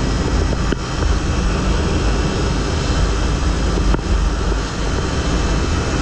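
Steady wind noise on an action camera's microphone while riding a bike, with two short knocks about a second in and about four seconds in.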